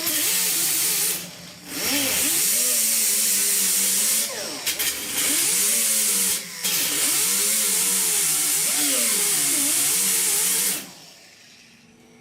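Grinder grinding down steel welds on a truck's inner roof patch panel, the motor's pitch sagging and recovering as it is pressed into the metal. It is lifted off briefly three times and stops shortly before the end.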